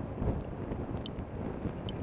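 Wind buffeting an action camera's microphone on a scooter moving in the rain: a steady, dense rumble of noise with a few faint ticks.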